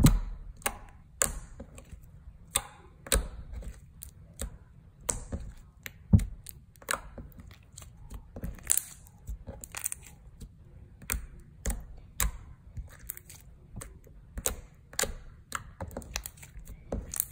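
A hand pressing, squishing and folding a thick white slime, just softened with hair gel, on a tabletop. The slime gives off irregular sticky clicks and pops, a few a second, with a sharper snap about six seconds in.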